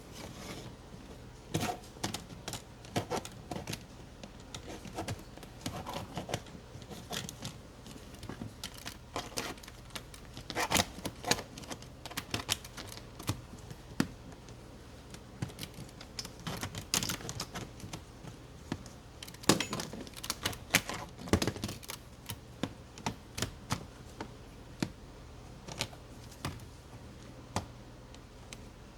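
Irregular clicks and knocks of hand work: tools and parts being handled and set down, some in quick clusters.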